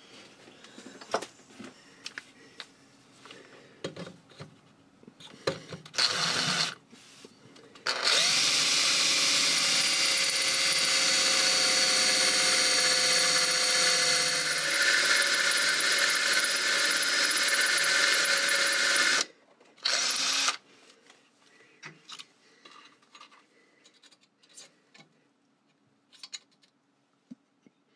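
Electric drill drilling a hole into the lathe's bed casting through a clamped steel guide block. A short run about six seconds in, then a steady run of about eleven seconds whose motor pitch rises as it starts and then holds, and a brief burst near twenty seconds. Light handling clicks fill the quieter stretches.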